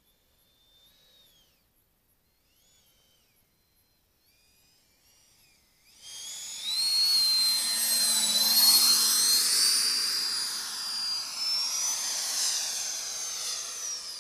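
Radio-controlled EL-39 model jet flying past close and low: its engine is a faint high whistle at first, then a loud high-pitched whine with rushing air that swells suddenly about six seconds in, shifts in pitch as it goes by, and fades slowly as the jet climbs away.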